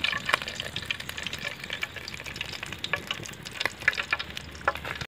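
Hot oil sizzling and crackling in a wide aluminium pan after deep-frying masala-coated fish steaks, with a steady hiss and a few sharper pops.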